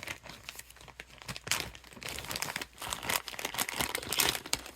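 Plastic packaging crinkling and rustling in irregular bursts as accessories are taken out of a product box.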